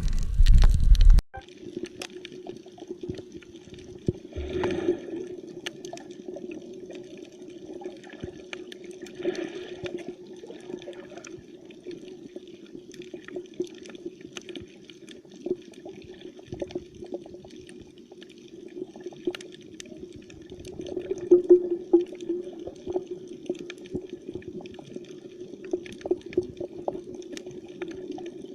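Underwater sound over a coral reef: a steady crackle of many sharp clicks, typical of snapping shrimp, over a steady low hum. A loud rumble at the start cuts off suddenly about a second in.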